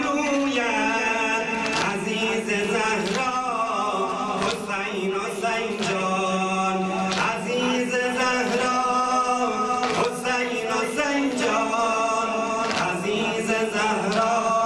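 A man chanting a noha, a Shia mourning lament, into a microphone in long held notes, with sharp slaps recurring about every second and a half: mourners beating their chests in time with the lament.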